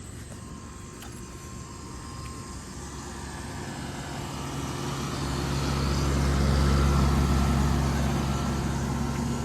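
Outdoor central air conditioning condensing unit running, a steady compressor hum under the rush of the fan, growing louder as it is approached until about seven seconds in.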